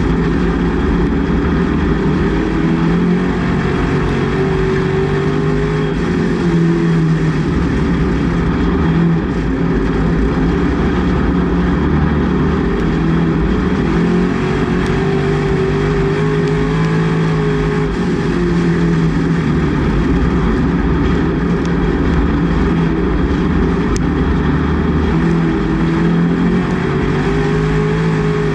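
Race car engine heard from inside the cockpit under racing load, its pitch climbing and dropping in slow waves about ten seconds apart.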